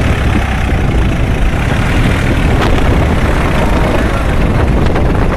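Massey Ferguson tractor's diesel engine running hard and steadily under heavy load, hauling an overloaded trolley up a sandy slope.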